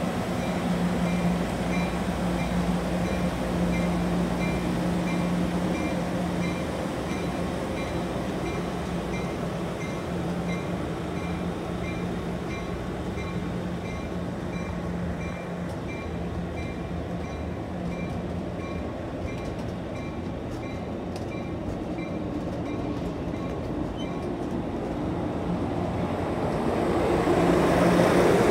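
Amtrak Pacific Surfliner bilevel passenger cars rolling slowly past along the platform, wheels rumbling on the rails. A bell rings steadily at about two to three strikes a second and stops a few seconds before the end, when the train noise swells.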